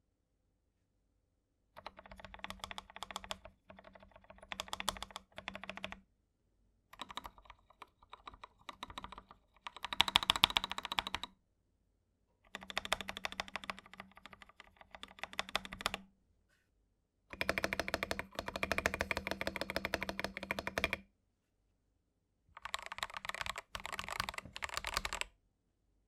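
Typing on a CIY68 (Tester68/GK68) hot-swap mechanical keyboard fitted with unlubed KTT Wine Red linear switches and XDA-profile keycaps, with its stock stabilizers tuned. Rapid keystroke clacking comes in seven bursts of a few seconds each, separated by short silences, and the loudest burst is about ten seconds in.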